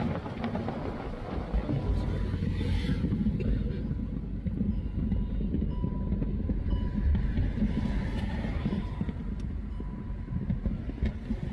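Steady low road rumble of a car driving along a highway, heard from inside the car.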